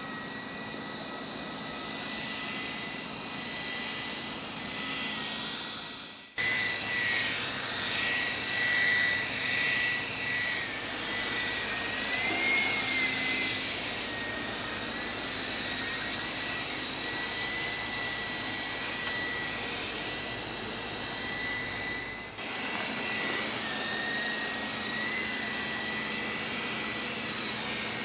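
Small toy radio-controlled coaxial helicopter flying: the steady high whine of its electric rotor motors with a hiss above it, the pitch wavering slightly as the throttle changes. The sound jumps abruptly twice, about six and twenty-two seconds in.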